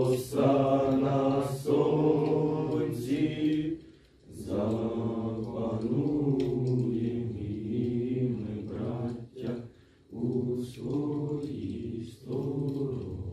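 A group of young male voices singing a slow song together, unaccompanied, in long held phrases with short breaks between them.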